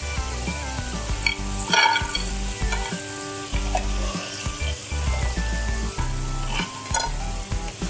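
Hot oil sizzling as potato finger chips deep-fry in a kadhai while a batch is lifted out with a slotted spoon, with a few sharp clicks around two seconds in and near the end.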